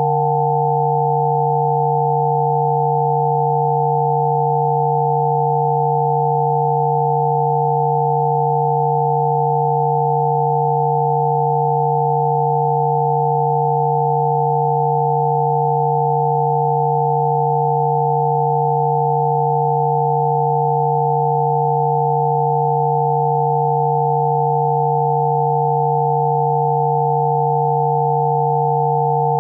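Electronic sine tones of a Rife frequency set: a low tone and a few higher ones sounding together, held steady without any change in pitch or level.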